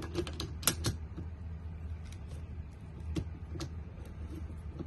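Light, irregular clicks and taps of a Bosch Flexi Click drill attachment being handled and turned on the drill. A quick cluster of clicks comes in the first second, then single clicks every second or so, over a low steady hum.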